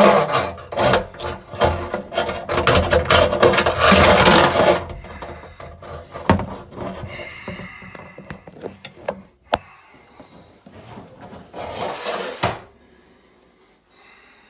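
Old kitchen mixer tap being worked loose and lifted out of its hole in a stainless steel sink: a dense run of scraping and knocking of metal on metal for the first few seconds, then quieter scrapes and a few single knocks.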